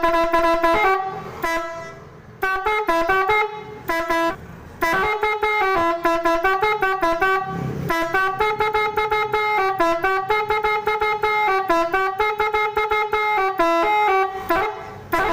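Basuri telolet bus horn, a 12-tone horn with three trumpets, playing a fast melody of short notes, often two or three pitches sounding together, with brief lulls about two and four seconds in.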